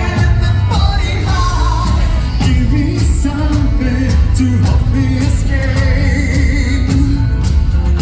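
Metal band playing live and loud, with a singer's vocal over heavy distorted guitars, bass and pounding drums.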